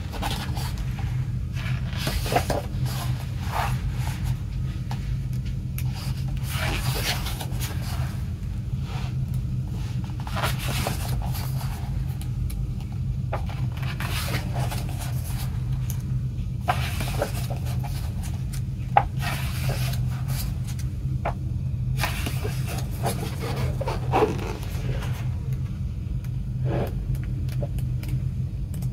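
Pages of a glossy photo book being turned and handled, paper sliding and rubbing in irregular rustles with an occasional sharp click. A steady low hum sits underneath.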